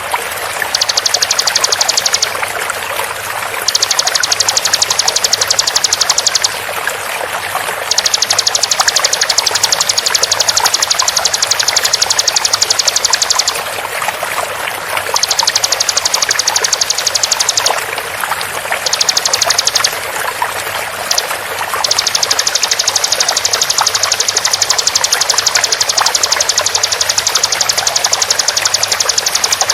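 Steady running water, overlaid by repeated bouts of a bar-winged prinia (ciblek) singing its very rapid, high-pitched 'tembakan' trill. Each bout lasts one to six seconds, and the trill breaks off and starts again about seven times.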